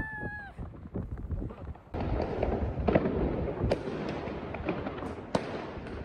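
Many fireworks and firecrackers going off around the city, a dense crackle of bangs that thickens about two seconds in, with a few sharper, louder cracks standing out.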